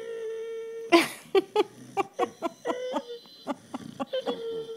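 Boxer dog whining: one steady whine lasting about a second, then a run of short choppy sounds, then two shorter whines near the middle and the end.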